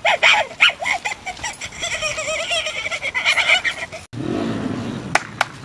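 Monkey-like screeching, a rapid series of high, wavering hoots, which breaks off suddenly about four seconds in. A couple of sharp clicks follow near the end.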